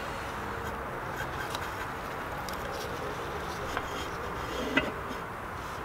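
Steady background noise with a few faint ticks and one small click about four and a half seconds in, as a piston is pushed into an engine block's cylinder bore to square a piston ring before checking its end gap.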